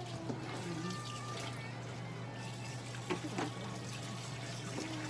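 A steady low hum and hiss of room noise, with faint background music over it and a few small clicks.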